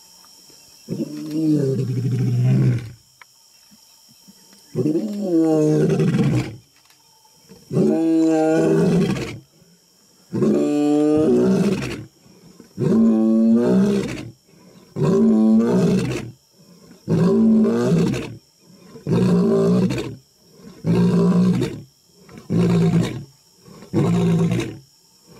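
A male African lion roaring in a full bout: a few long, deep roars spaced several seconds apart, then shorter grunting roars coming faster, about one every second and a half by the end.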